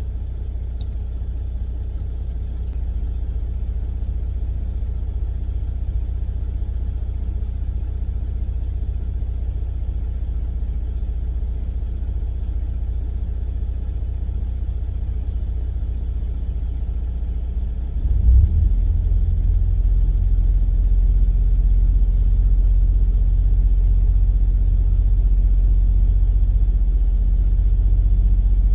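Semi truck's diesel engine and road rumble heard from inside the cab while driving: a steady low drone that grows louder and deeper about two-thirds of the way through.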